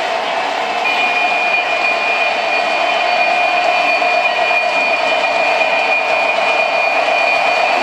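Electric O-gauge model trains running on three-rail track, a steady rumble of wheels and motors. A high steady whine joins about a second in and holds to the end.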